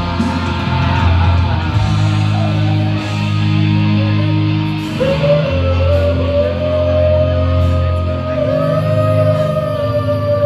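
A man singing karaoke into a microphone over a rock backing track played through the PA. About halfway through he holds one long sung note with small bends in pitch.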